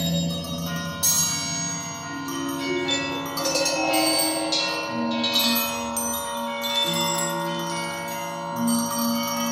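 Music played back through floor-standing hi-fi loudspeakers: struck, bell-like tones that ring on and overlap above held low notes, with new strikes every second or two.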